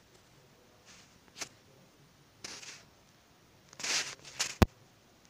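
A few brief rustling noises scattered through quiet room tone, and a single sharp click about four and a half seconds in.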